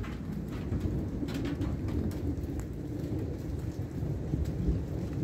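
Thunder rumbling low and continuously, swelling slightly, with a few faint raindrop ticks.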